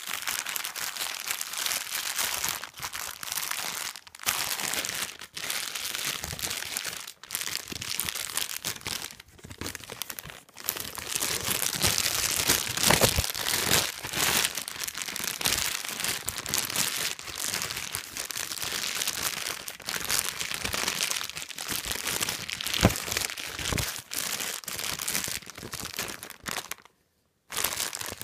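Thin, shiny red plastic being crumpled and crinkled close to the microphone: a continuous crackling with short pauses, breaking off briefly near the end.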